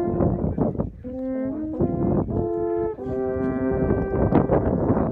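Three alphorns playing together in harmony: long held notes that move to new pitches every second or so.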